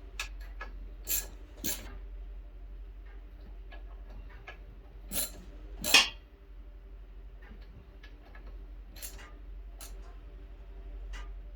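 Scattered sharp metal clicks and clinks of tools and parts being handled while an air compressor's pump head is bolted back together, the loudest two about five to six seconds in, over a faint steady hum.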